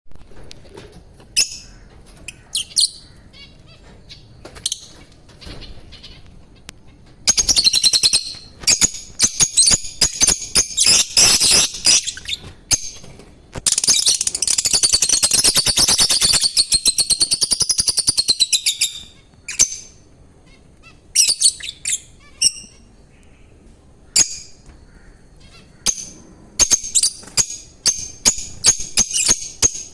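Pet lovebirds chirping in shrill, high calls: a few scattered calls at first, then fast, dense chattering that runs into a long warbling trill, with more bursts of calls near the end.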